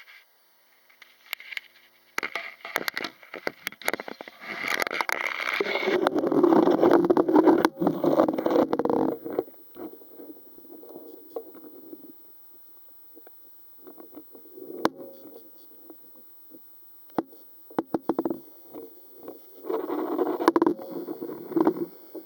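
Danionella translucida heard underwater, making bouts of rapid clicks that run together into a buzz. A long, loud bout comes about two seconds in, with shorter bouts later. These are the fishes' own sounds, taken by the uploader for minor skirmishes, a calling buzz and perhaps a mating call.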